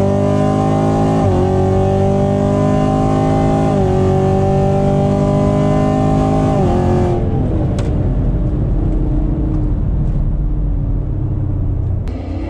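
Chevrolet Camaro SS's 6.2-litre V8 at full throttle, heard from inside the cabin, rising in pitch through the gears with quick upshifts about one, four and seven seconds in. About seven seconds in the throttle is lifted and the engine note falls away into wind and road noise. A different sound cuts in near the end.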